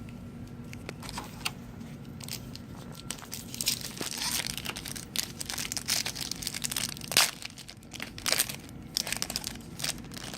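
Foil wrapper of a trading-card pack crinkling and tearing as it is handled and opened. There are irregular crackles, sparse at first and thickening from about four seconds in.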